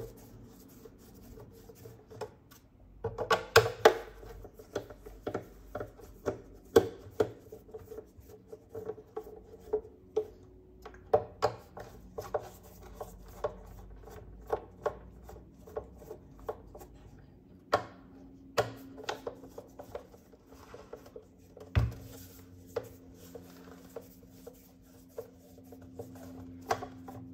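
Phillips screwdriver working screws out of a plastic router housing: irregular clicks, taps and scrapes of the bit in the screw heads and against the plastic, with a few louder knocks of the case.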